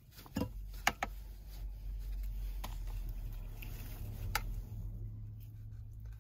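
Hands handling a GPS aerial and its thin cable: a few light clicks and soft rustles, the loudest about a second in and again past four seconds, over a steady low hum.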